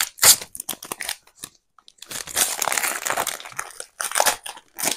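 Foil trading-card pack wrapper being torn open and crinkled, in irregular crackling bursts, the longest lasting over a second.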